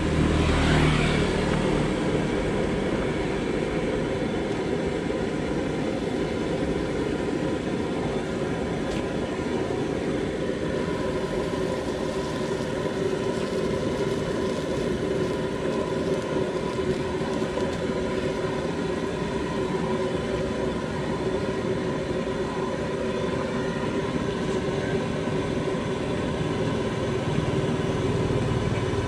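Steady rushing noise of the burner under a large street-vendor wok. About a second in there is a louder burst of sizzling as a handful of greens drops onto the frying noodles.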